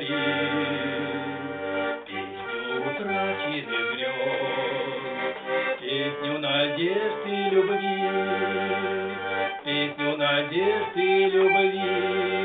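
Accordion playing an instrumental passage after the last sung refrain: held chords that change every second or two, with deep bass notes coming in and dropping out.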